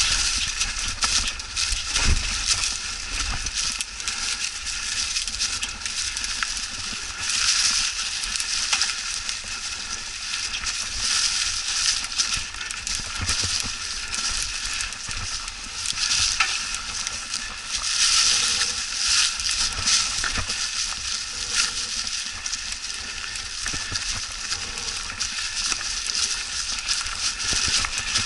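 Mountain bike tyres rolling through dry fallen leaves on a dirt trail: a continuous crunching and crackling, with many small clicks and knocks, louder in stretches.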